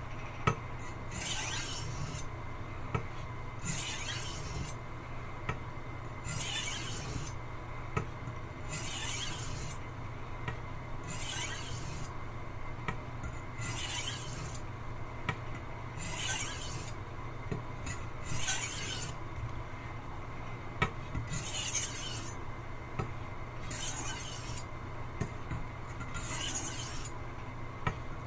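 Wüsthof Classic 10-inch chef's knife blade stroked along a wet water stone: a gritty scraping swipe about every two and a half seconds. He is carrying on sharpening after a small burr has been raised on the edge.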